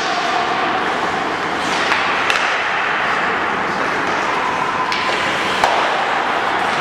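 Indoor ice-hockey rink sounds: a steady scrape and hiss of skates on the ice, with several sharp clacks of sticks hitting pucks, echoing in the arena.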